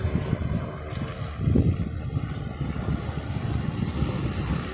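Joyance quadcopter cleaning drone's propellers running as it hovers low and descends to land, with uneven low rumbling gusts.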